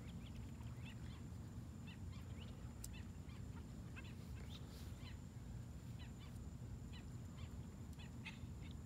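Faint scattered short chirping calls of night-time animals, several every second, over a low steady rumble.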